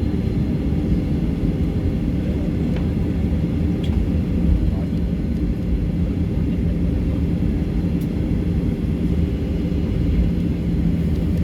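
Steady low rumble inside a Boeing 737-800's cabin, its CFM56 engines running at idle after landing, with a faint steady hum.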